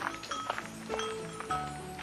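Background instrumental music: a light tune of sharply struck notes over held tones.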